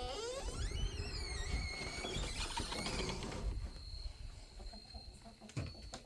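Chickens giving high, squealing, wavering calls, several at once, for about three and a half seconds, then quieter.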